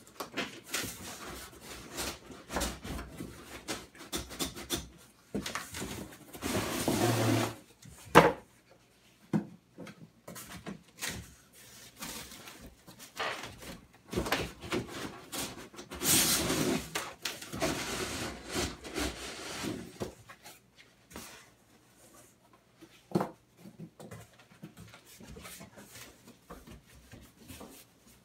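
Plastic wrap crinkling and cardboard scraping as plastic-wrapped honey extractor parts are handled inside a shipping box. Irregular knocks come in between, the sharpest about eight seconds in.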